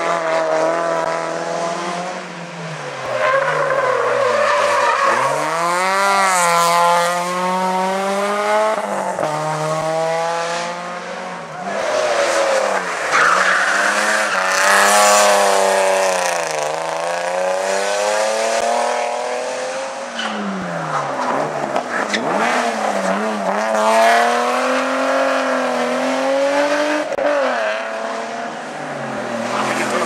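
Hillclimb race cars, a Nissan 200SX (S14) and then a BMW E36 3 Series, driven hard through a hairpin one after another. Their engines rev up and drop again and again through the gears, with tyre squeal as the rear wheels slide.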